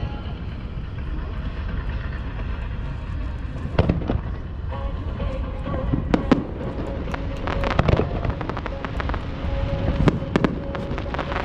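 Aerial fireworks bursting: a handful of sharp bangs, the loudest about four, six, eight and ten seconds in, each followed by crackling, over a steady low rumble.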